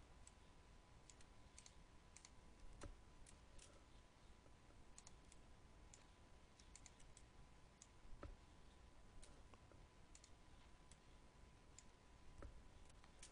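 Faint, irregular clicking of a computer mouse and keyboard, with a few soft knocks at about 3, 8 and 12 seconds in, over a faint steady tone.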